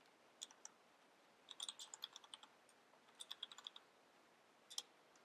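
Corsair K70 mechanical keyboard being typed on, faint: two quick runs of keystrokes, with a single sharper click near the end.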